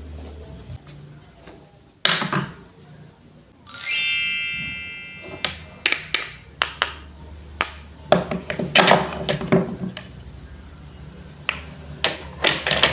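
Wooden toy food and utensils tapping and clacking on a hard surface. A single bright ringing ping comes about four seconds in and fades away over a couple of seconds, and a scratchy rasp runs for about two seconds near the middle.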